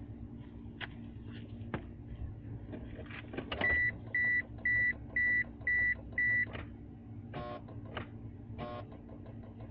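1995 Mitsubishi Eclipse GS that won't start, clicking as the key is worked, with a steady low hum underneath. About four seconds in come six electronic beeps at about two a second, then two short buzzy clicks.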